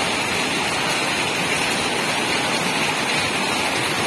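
Heavy rain pouring down onto a flooded yard, with the floodwater running across it: a steady, even hiss of water.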